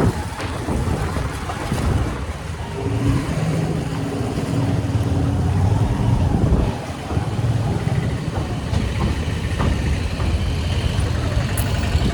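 Motor vehicle running on the road: a steady engine hum with road and traffic noise.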